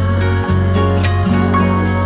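Background music: calm, new-age style instrumental with plucked strings over a steady bass, notes changing every second or so.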